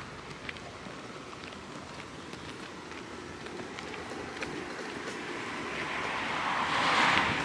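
Loaded wheelbarrow rolling over a gravel path, its wheel rumbling and rattling with scattered small clicks. About six seconds in a rush of hiss swells to the loudest point and then eases.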